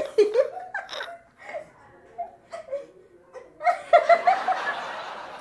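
People laughing: short scattered vocal sounds and giggles, then a loud burst of laughter about three and a half seconds in that trails off.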